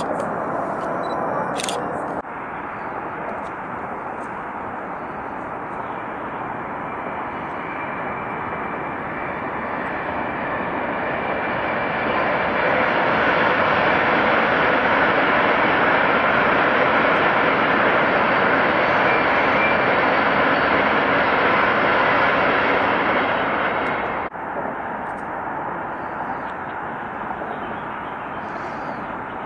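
High-speed electric multiple-unit train passing on an elevated viaduct: a steady rushing of wheels and air that swells, stays loud for about ten seconds, then cuts off suddenly, leaving a quieter rushing. A few sharp clicks near the start.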